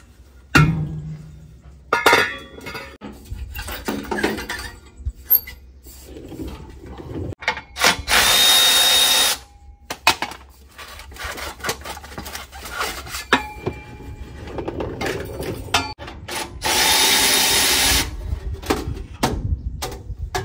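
A power tool runs in two short bursts of about a second and a half each, several seconds apart. Between the bursts come scattered knocks and clanks of metal parts and hand tools.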